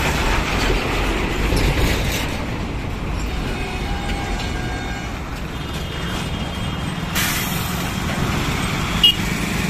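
Heavy highway traffic passing close by: truck engines rumbling and tyres rolling over a rough, patched road surface, with motorcycles going by. A sudden hiss starts about seven seconds in and fades over a couple of seconds, followed by a brief sharp sound near the end.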